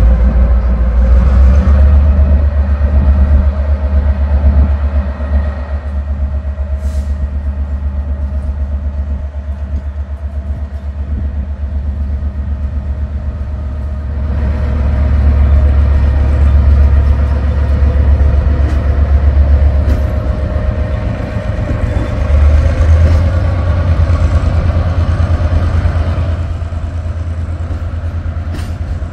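Belgrano Norte commuter train's diesel locomotive pulling out, its engine running under load with a steady low drone and a held tone above it, growing louder about halfway through.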